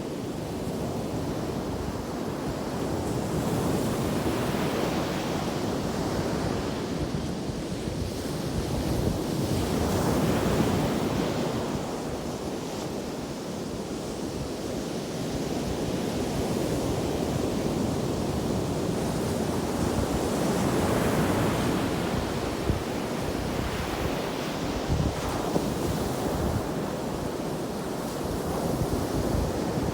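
Ocean surf breaking on a sandy beach: a continuous rushing wash that swells and eases every several seconds as waves roll in.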